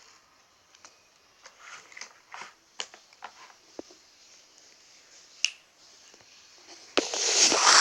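Play dough tubs and packaging being handled: scattered light clicks and taps, then a loud rustling that starts about seven seconds in.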